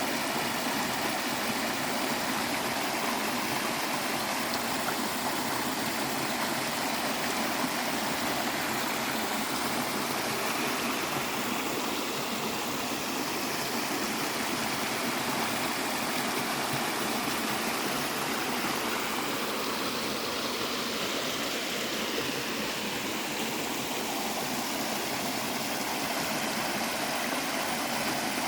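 Running water of a stream, a steady rush that does not change.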